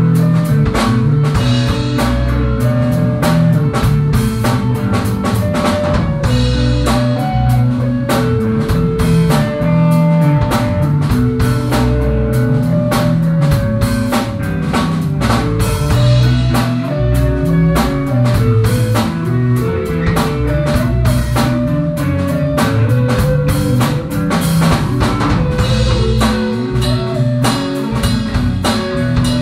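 A live instrumental jam: guitars playing over a steady drum-kit beat.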